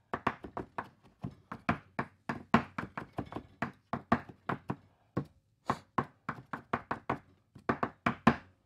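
Large kitchen knife chopping food on a cutting board: a quick, uneven run of knocks, about three or four a second, with a brief pause about five seconds in.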